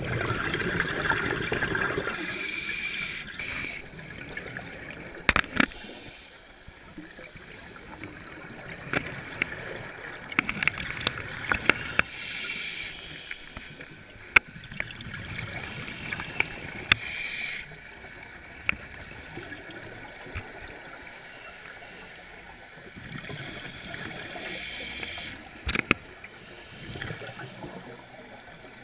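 Underwater scuba diver breathing through a regulator, heard from under water: bubbling surges of exhaled air that last a few seconds each and come about four times, with scattered sharp clicks and knocks in between.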